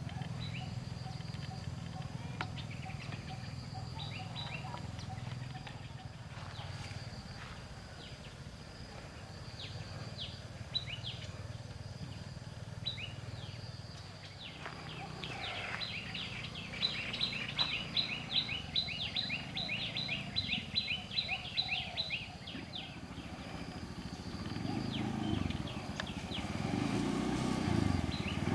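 Birds chirping over steady outdoor ambience, with a fast run of repeated high chirps, about four a second, for several seconds in the middle.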